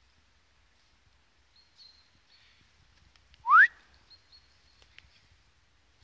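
A person whistling once: a short, loud note rising in pitch a little after the middle. Faint, high bird chirps come and go around it.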